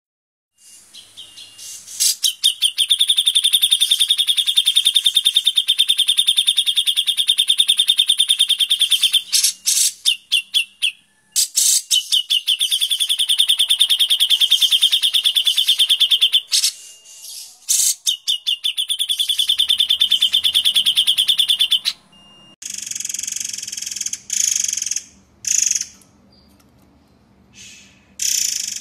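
Cage songbirds singing 'tembakan' song, the rapid-fire trills used as masteran for training other birds: three long, very fast trills with pauses between them, followed near the end by shorter, harsher buzzy bursts.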